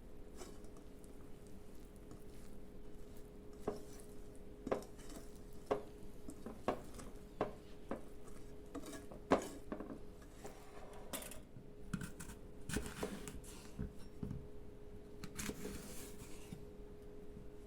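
Kitchen utensils clinking, tapping and scraping against dishes: a dozen or so sharp knocks at uneven intervals with stretches of scraping between them, over a faint steady hum.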